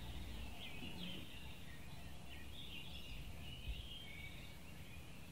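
Birds chirping, many short calls, over a low steady rumble of ambient noise.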